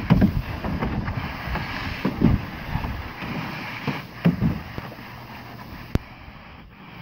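Water spraying from a garden hose nozzle and splashing in a plastic paddling pool as a German Shepherd snaps at the stream, with wind gusting on the microphone. A single sharp click about six seconds in.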